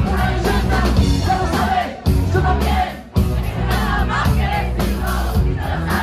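Live band playing loudly, with the lead singer singing into the microphone over electric guitar and the crowd singing along.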